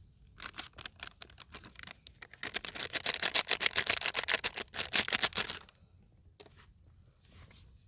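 A rapid run of dry clicks, many a second, getting denser and louder about halfway through and stopping suddenly about five and a half seconds in.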